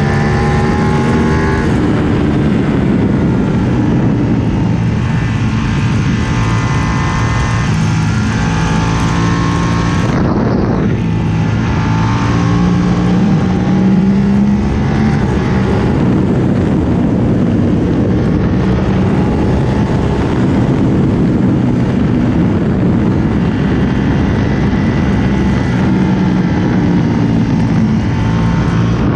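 Ducati Panigale 1299S's L-twin engine through a full Akrapovic titanium exhaust, riding at speed: the engine note climbs and drops again and again as the bike accelerates and shifts through the gears, over a steady rush of wind.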